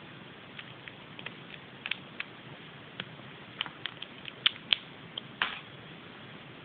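Hands handling a Kinder Surprise egg and its plastic parts: scattered small clicks and crackles, with two sharper clicks about four and a half seconds in and a short crackle just after.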